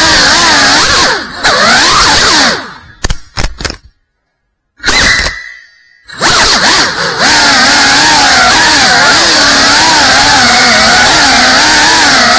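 Brushless motors and ducted propellers of a GEPRC Cinelog 35 cinewhoop whining, the pitch wavering up and down with throttle. The sound falls away and goes silent for about a second around four seconds in, then comes back strongly about six seconds in.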